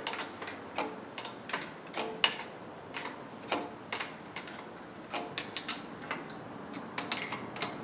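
A 13 mm wrench clicking on the pivot nut of a lathe's motor mount as the nut is tightened: irregular sharp metallic clicks, about two a second.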